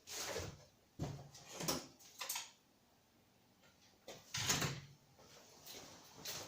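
Rummaging through a tool drawer: a drawer worked and metal hand tools clattering and knocking in several separate bursts, the loudest about four and a half seconds in.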